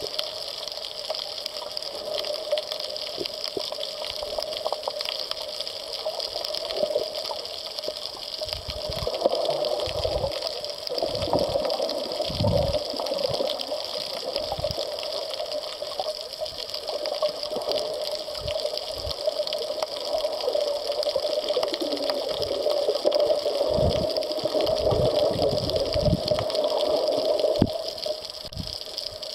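Underwater recording: a steady, muffled rush of water with irregular low thumps, more of them from about a third of the way in.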